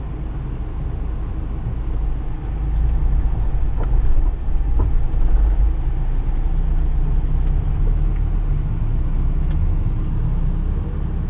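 Four-wheel-drive SUV driving over soft sand, heard from inside the cabin: a steady low engine and drivetrain rumble that gets louder about two and a half seconds in, with a few light knocks.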